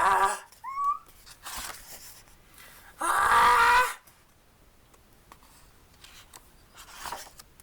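A performer's wordless vocalising: two loud, strained wailing cries about three seconds apart, with a short rising whimper and breathy gasps between them.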